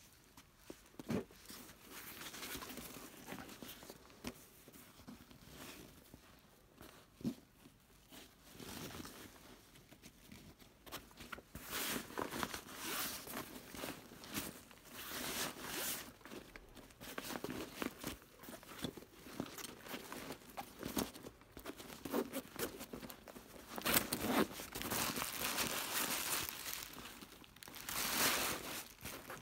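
A fabric camouflage bag-backpack being handled: irregular rustling and crinkling of the synthetic cloth as it is turned over and its straps are pulled. The rustling grows louder and busier partway through, and there is a sharp click about a second in and another around seven seconds.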